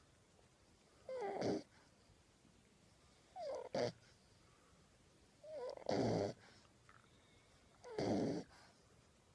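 French Bulldog puppy snoring in his sleep: four snoring breaths about two seconds apart, each starting with a short squeaky note that slides in pitch and turning into a rattly snore.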